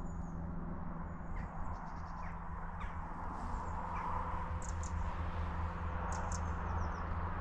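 Outdoor riverside ambience: birds giving short calls several times over a steady low rumble.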